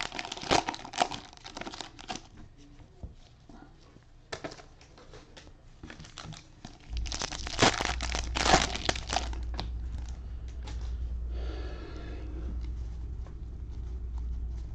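Cellophane wrappers of football card cello packs crinkling and tearing as they are opened by hand, in two busy bursts near the start and past the middle. A low steady hum comes in about halfway through.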